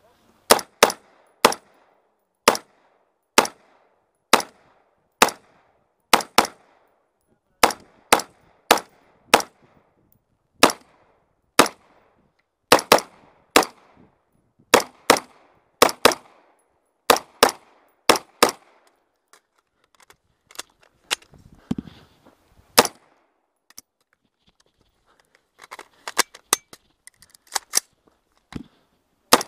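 Semi-automatic rifle being fired in a practical shooting stage: dozens of loud shots, many in quick pairs, with a short lull of only a few fainter shots about two-thirds of the way through before rapid firing picks up again.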